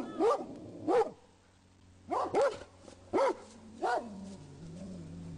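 Rhodesian Ridgebacks alert-barking at a stranger. There are about seven barks, singly and in pairs, and they stop about four seconds in.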